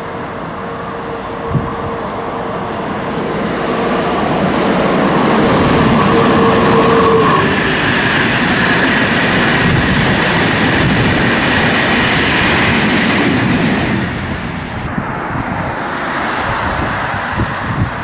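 A long-distance passenger train passing at speed. The rumble builds over several seconds and stays loud, then eases after about fourteen seconds. A steady whine runs through the first half and stops about seven seconds in, and a higher whine follows.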